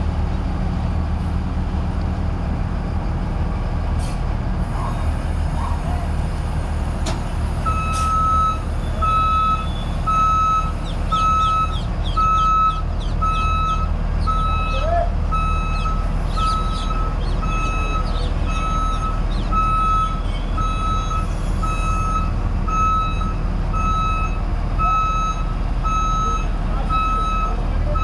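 New Holland TC5.30 combine harvester's engine running steadily. About eight seconds in, a reversing alarm starts up, giving a long run of evenly spaced beeps, the sign that the machine is backing up.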